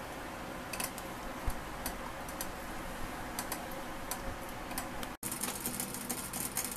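Steam distiller running with a steady hiss and scattered light ticks, while steam escapes at a gasket unseated by a pinched lemongrass stalk. The sound cuts out for an instant about five seconds in.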